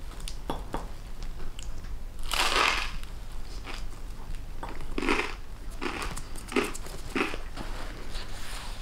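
Toasted sourdough Yorkshire rarebit being bitten into with a loud crunch of crust about two seconds in, then chewed with four shorter crunches.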